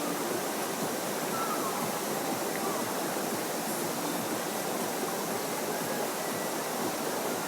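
Steady rushing of a stream or river flowing.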